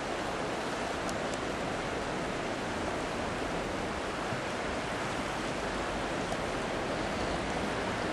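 Rapids of the River Shannon rushing steadily, a continuous noise of fast-flowing water.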